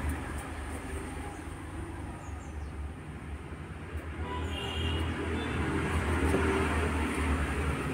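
Steady low rumble with a noisy hiss, growing louder about five seconds in.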